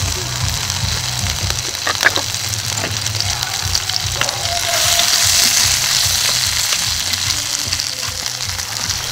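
Spicy pork intestines (bulmakchang) sizzling as they fry, the sizzle swelling about halfway through. Distant music with a low beat plays underneath.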